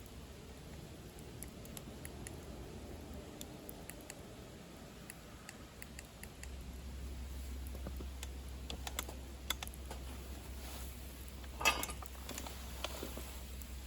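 Wood fire crackling in a DCM Fire Boost secondary-combustion camp stove: irregular sharp pops and ticks, with one louder pop a little before the end. A low steady rumble comes in about halfway through.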